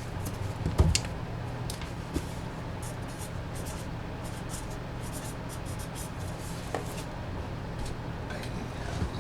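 Soft rustling, scratching and light tapping of hands handling trading cards and their packaging, with a knock about a second in, over a steady low hum.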